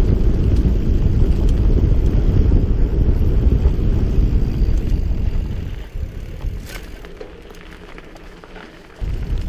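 Wind buffeting the microphone of a camera riding on a mountain bike at speed on a dirt trail, a loud low rumble mixed with tyre noise. It drops off sharply about six seconds in, with a single click, and comes back abruptly near the end.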